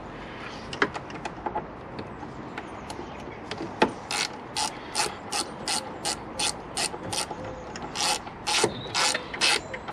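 Ratcheting hand screwdriver clicking in short, regular strokes, about three a second, as it drives a small screw holding the radiator fan in place. It starts about four seconds in and pauses briefly partway through. Before that there are a few scattered clicks and knocks of plastic parts being handled.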